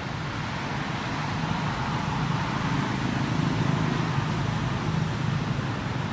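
A motor vehicle's engine running steadily, growing a little louder toward the middle and easing off near the end.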